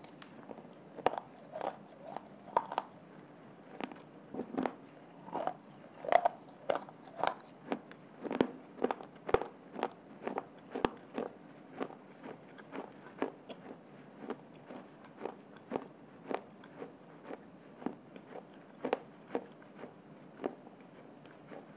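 A person biting and chewing hard, crunchy baked clay, giving a run of sharp crunches about two a second, louder in the first half and softer toward the end.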